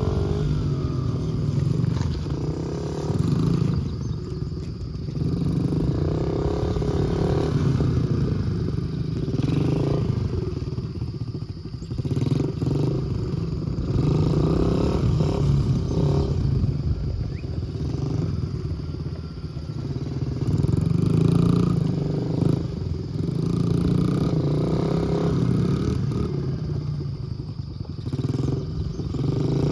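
Two small youth dirt bikes' engines running, their pitch rising and falling as the riders throttle up and ease off. The sound swells and fades every few seconds as the bikes circle nearer and farther.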